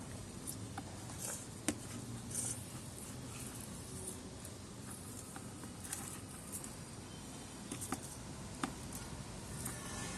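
Hands digging through potting soil to uncover potatoes: scattered light rustles, scrapes and small clicks.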